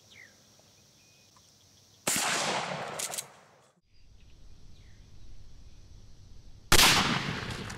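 Mossberg 500 12-gauge pump shotgun firing a slug: one shot report about two seconds in, ringing away over about a second and a half. A second, louder shot report comes near the end.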